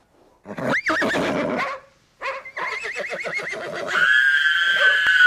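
Animal calls: a short yelp about half a second in, a quick wavering trill, then from about four seconds in a long, steady, slowly falling canine howl.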